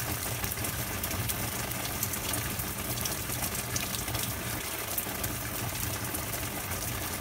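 Steady rain falling: a constant hiss of water with scattered sharp ticks of drops hitting nearby surfaces.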